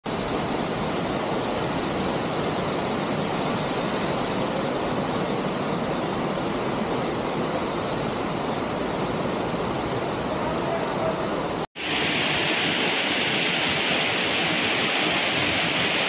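Steady rushing of a waterfall falling into a pool. It is cut off abruptly about twelve seconds in and picks up again at once, more hissy.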